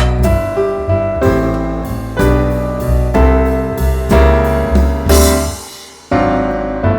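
Background piano music: notes and chords struck at a steady pace, each one ringing and fading. There is a short break about six seconds in before a new chord sounds.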